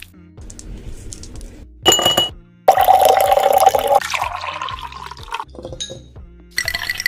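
Glassware clinking with a short ring about two seconds in, then liquid poured into a glass for a couple of seconds, its pitch rising slightly as it fills. Background music plays underneath.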